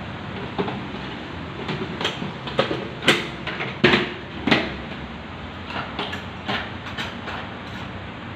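A series of sharp, irregular knocks and clatters over a steady background noise, the loudest few coming about three to four and a half seconds in.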